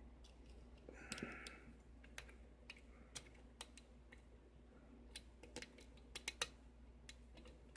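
Faint, scattered clicks and ticks of a hook pick working the pins of a six-pin brass challenge lock under a tension wrench, with a short soft scrape about a second in.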